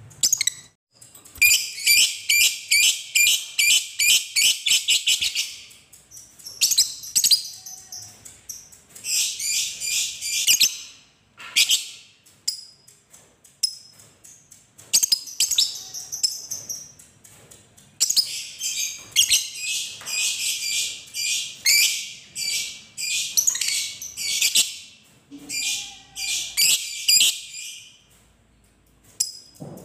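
Fischer's lovebird giving its long chattering song ('ngekek'): runs of rapid, shrill, repeated chirps lasting from one to six seconds, broken by short pauses.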